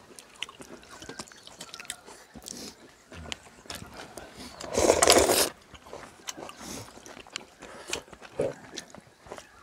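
People eating ramyun and gimbap with chopsticks: light clicks of chopsticks on bowls and chewing, with one louder slurp of noodles about five seconds in.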